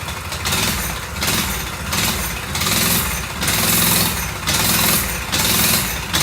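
Coleman BT200X mini bike's small single-cylinder engine running cold, its speed surging up and down about six times. The uneven running comes from the choke being taken off too soon before the engine has warmed up.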